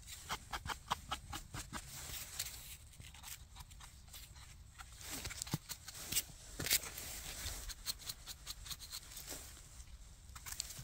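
Small knife cutting and scraping soil off the stem bases of freshly picked porcini mushrooms: a quick run of short scraping strokes in the first couple of seconds, more strokes a few seconds later.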